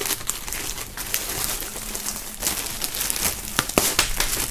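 Clear plastic film bag crinkling and rustling as a fabric sports bag is handled and slid out of it, with a few sharper crackles near the end.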